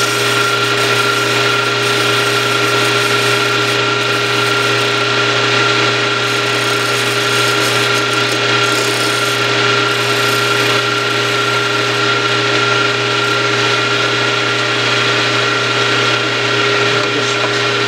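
Small wood lathe running with a steady hum while a small hand-held lathe tool cuts the spinning wooden wheel blank, rounding its corner.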